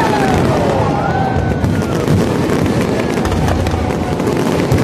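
A fireworks display with many aerial shells bursting at once: a dense, continuous crackling with booms and low rumble underneath.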